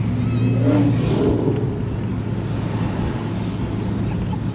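Car engine running steadily at cruising speed, heard from inside the cabin as a continuous low drone. A brief wavering higher-pitched sound rises over it about a second in.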